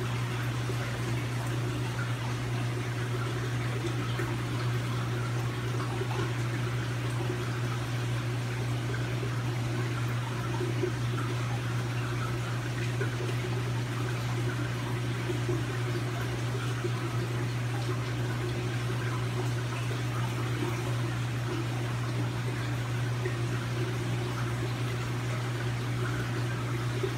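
Quarantine aquarium's filtration running: a steady flow of circulating, splashing water over a constant low pump hum.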